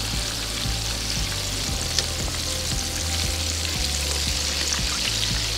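Breaded quail frying in hot oil, a steady sizzle, with a few faint clicks as metal tongs lift the finished, floating pieces out of the pot.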